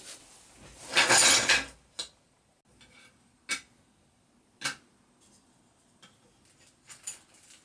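A plastic-wrapped cardboard parcel rustling and knocking as it is set down, about a second in. Then several sharp clacks of hard 3D-printed plastic parts being handled and stacked against each other.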